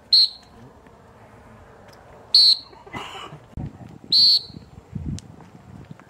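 Three short, shrill whistle blasts about two seconds apart, each a steady high tone.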